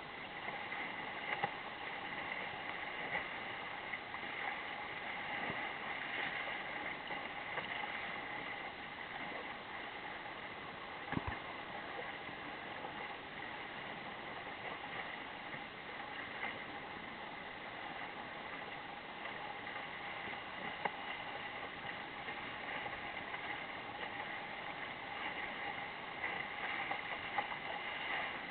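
Water rushing steadily along the hull of a small sailing dinghy under sail, with a few sharp knocks now and then.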